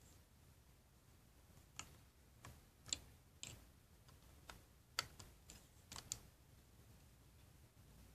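LEGO bricks clicking and knocking as they are handled and pressed together: faint, scattered sharp clicks, about ten of them, stopping after about six seconds.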